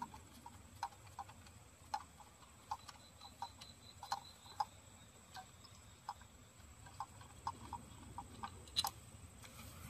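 Faint, irregular small clicks and ticks, roughly two a second, from hand and tool work down in a spark plug well of a car engine while the last spark plug is being removed.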